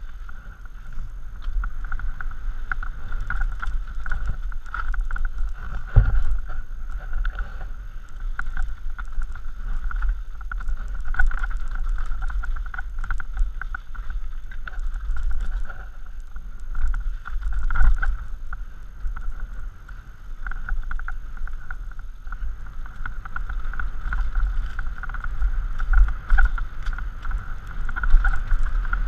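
Mountain bike descending rocky dirt singletrack, recorded from a helmet camera: wind buffeting the microphone, tyres rolling and crunching over dirt and stones, and the bike rattling. Sharp knocks come where the wheels strike rocks, the strongest about 6 seconds in, over a steady high buzz.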